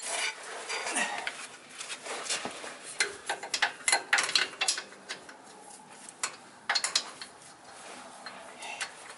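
Irregular metallic clinks and clatter of hand tools and sockets being picked up and handled on a concrete floor, with sharp clicks scattered unevenly through the whole stretch.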